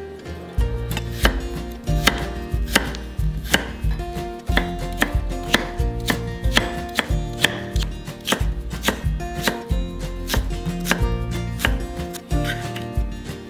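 Kitchen knife chopping food on a cutting board in a quick, even rhythm of two to three chops a second.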